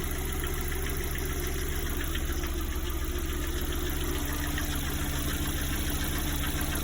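Lada Priora 1.6-litre four-cylinder petrol engine idling with a steady, fast, even knock. The knock comes only once the engine is warm; the owner rules out the hydraulic lifters and suspects a piston knocking.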